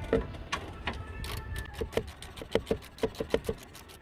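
Hand ratchet wrench clicking as a bolt is turned, a run of sharp ratchet clicks, several a second, coming quicker and more evenly in the second half.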